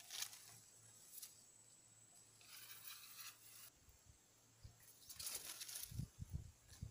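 Faint rustling and crinkling of leaves and grass close to the microphone, in short bursts, with a few soft low thumps near the end.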